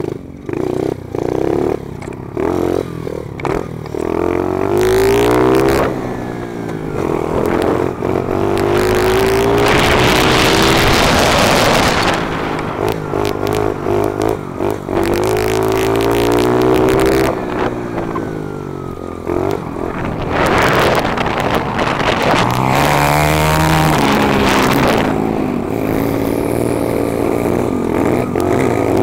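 A modified pit bike's small single-cylinder four-stroke engine with an FMF exhaust is ridden hard, its pitch rising and dropping back over and over as the rider works the throttle and gears through the turns. The sound cuts in and out rapidly over the first few seconds, and at times wind rushes over the helmet microphone.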